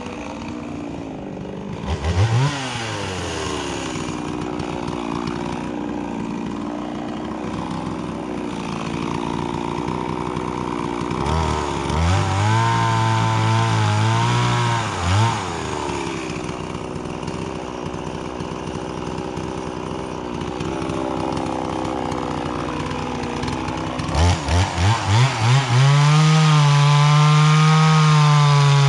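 Chainsaw idling, revved briefly about two seconds in and for a few seconds in the middle. Near the end it is blipped several times, then held at full throttle as it cuts into a log.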